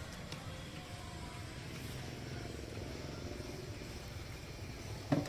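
Steady low rumble of background noise, with a short pitched sound about five seconds in.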